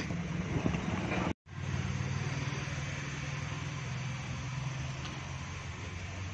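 Steady low mechanical hum over a background hiss, cut off by a brief drop to silence about a second and a half in, then carrying on unchanged.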